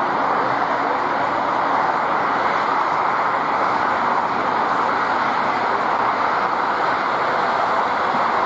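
Airliner noise: a steady, unbroken rush of jet engines and airflow, without breaks or changes.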